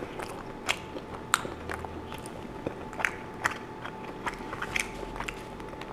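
A person chewing a mouthful of soft pull-apart bread with chicken, with many small scattered mouth clicks.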